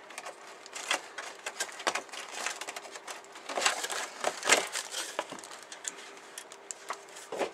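Clear plastic bag and cardboard packing of a plastic model kit being handled: irregular crinkling and rustling with scattered light clicks, busiest around the middle, over a faint steady hum.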